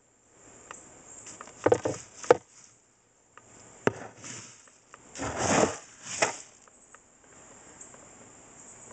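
Several hard knocks and a short rustling burst from the infested bird seed and its container being handled.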